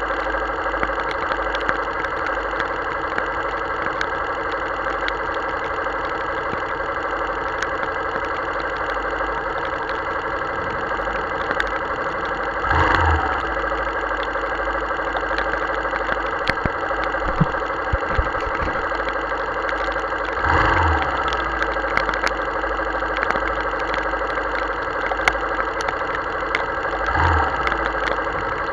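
Motorcycle engine idling steadily while stopped in heavy rain, with many small ticks over a steady rain hiss. Three louder swells come and go, about 13, 21 and 27 seconds in.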